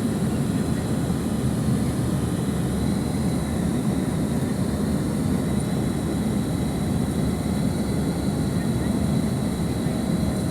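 Airbus A320 passenger cabin noise during the landing: a steady low rumble of engines and airflow with a faint high whine above it.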